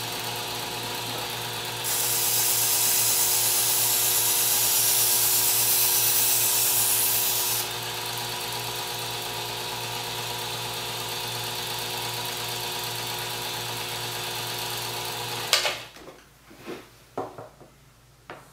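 Work Sharp Ken Onion Edition powered belt knife sharpener running steadily at its slowest speed for deburring passes. From about two seconds in to about eight seconds a louder hiss rides on the motor sound, the knife edge rubbing on the moving belt. The motor shuts off with a click shortly before the end, followed by a few light knocks.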